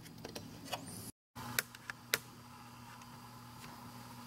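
Quiet shop room tone: a faint steady low hum with a few light clicks, broken by a brief dead gap about a second in.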